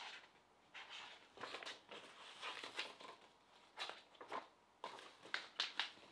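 Faint rustling and soft flaps of a hardback picture book being opened and its pages turned, with a few light clicks of paper and cover being handled.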